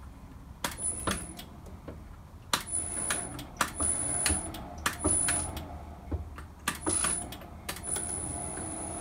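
Drill press power-tapping an M8 thread at low spindle speed on a variable-frequency drive. The motor is started and stopped in short runs with a high whine, and sharp clicks and metallic knocks mark each start and stop. Near the end the motor runs for a longer stretch.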